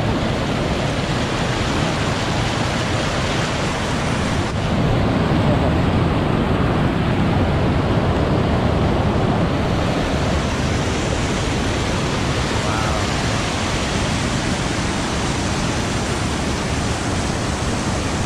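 Waterfall on a spring-fed river, giving a loud, steady, even rush of falling water.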